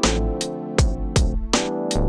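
Background music with a steady drum beat, about two and a half beats a second, over sustained chords.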